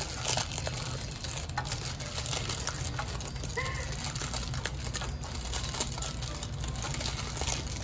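Crumpled parchment paper rustling and crackling in small scattered bursts as it is pressed and pleated around the inside wall of a round metal cake tin, over a steady low hum.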